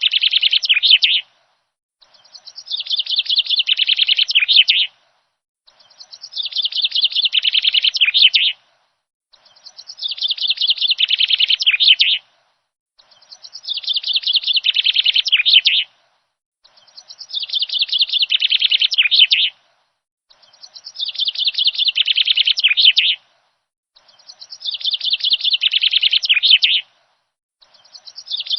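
A songbird's rapid chirping trill: the same phrase of about three seconds, dropping in pitch at its end, repeats about every three and a half seconds with silent gaps between, as in a looped bird-song recording.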